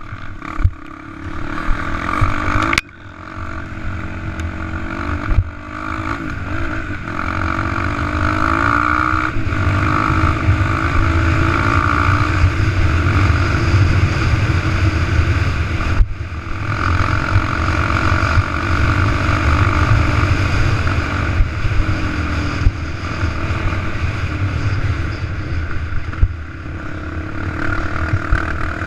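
Motocross engine revving up and down as it is ridden hard over a dirt track, with a heavy low rumble of wind on the mounted camera. The engine note drops off sharply about three seconds in, and again briefly around the middle.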